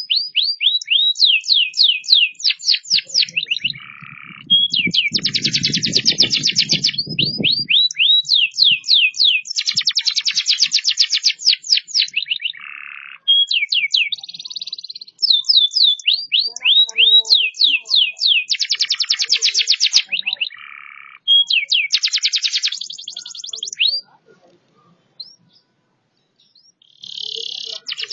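Domestic canary singing loudly: phrases of fast trills made of rapidly repeated falling notes alternating with buzzy rolls, with short breaks between phrases. A low rumble sits under the song about three to eight seconds in. The song stops about 24 seconds in, with a brief phrase near the end.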